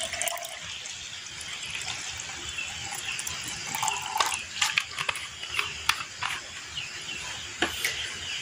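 EM4 liquid poured from a plastic bottle into a cut-off plastic bottle cup of molasses: a steady trickling splash, with scattered short clicks.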